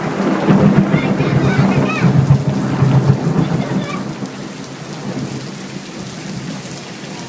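Thunder rolling, loud for the first three or four seconds and then dying away, over steady rain.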